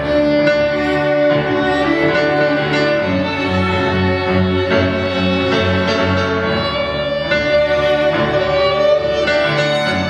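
Live instrumental music from a grand piano: a fast, busy figure in the upper notes over held low notes that change about every half second, with sustained tones running through it.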